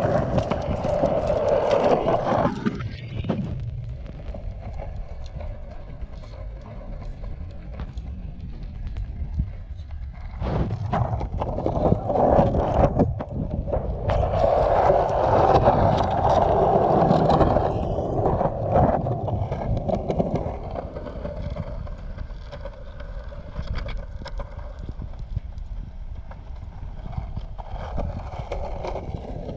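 Cruiser skateboard wheels rolling along a concrete sidewalk, a steady rumble that grows louder in the first couple of seconds and again through the middle, with sharp clicks here and there as the wheels cross the joints.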